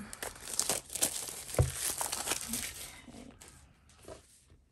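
Wrapping on a small journal crinkling and tearing as it is pulled open by hand, with a dull knock about one and a half seconds in; the rustling fades out after about three seconds.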